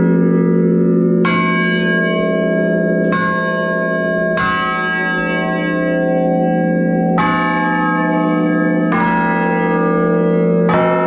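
A chime of tower bells playing a slow tune, heard from inside the belfry: about six strikes one to three seconds apart, each bell ringing on under the next.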